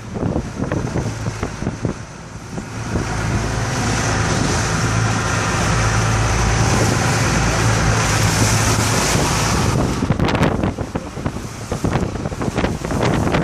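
Strong wind buffeting the microphone in irregular gusts. From about three seconds in to about ten seconds in it becomes a steadier, louder rush with a low steady hum under it.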